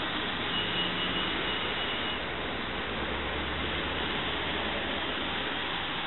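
City buses and traffic on a wet street: a steady hiss of tyres on rain-soaked pavement mixed with engine noise. A thin high whine comes in about half a second in and stops near the two-second mark, and a low hum rises for a couple of seconds after it.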